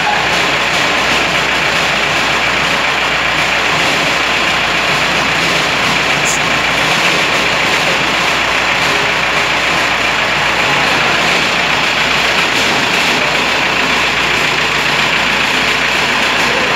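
A machine running steadily, a loud, even, engine-like noise that does not change.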